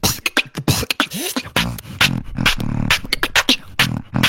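Competition beatboxing: fast, sharp kick and snare strikes over a low buzzing bass line, with a rising vocal sweep about a second in.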